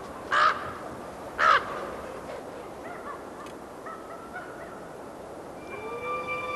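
Two loud cawing calls from a crow-family bird, about a second apart, followed by a quieter stretch. Soundtrack music with held notes comes in near the end.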